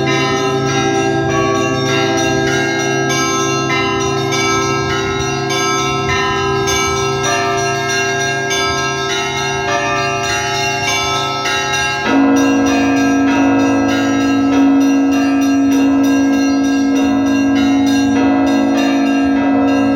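Orthodox church bells rung for a festal liturgy: small bells struck in a fast, steady rhythm over the ringing tone of a larger bell. About twelve seconds in, a lower bell is struck and its deep tone rings on beneath the chiming.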